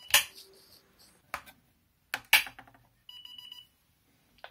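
Sharp clicks as the FPV ground station's power toggle switch and its cover are worked, the loudest about two seconds in, then about three seconds in a half-second run of rapid electronic beeps as the ground station powers up.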